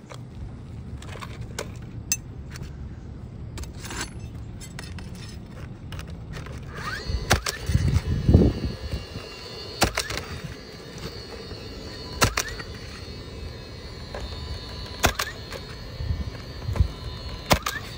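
DeWalt cordless coil roofing nailer firing nails through an asphalt replacement shingle: a series of sharp single shots about two to three seconds apart, starting about seven seconds in, with a louder low thud among the first shots.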